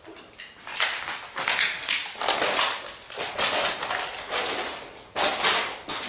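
Footsteps crunching over debris on the floor, an uneven series of scrunching steps about two a second.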